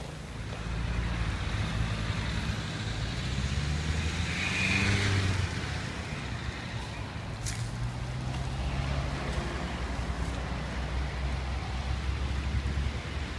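Road traffic: a heavy vehicle's engine running and passing as a steady low rumble, with a short hiss about four to five seconds in and a single sharp click a few seconds later.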